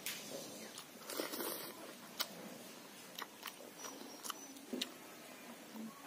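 Close-up eating sounds: chewing, with scattered sharp clicks and smacks, and fingers mixing rice on a banana leaf.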